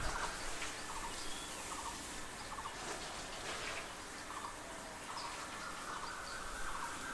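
A bird calling in short runs of quick repeated notes, again and again, over a faint steady hiss.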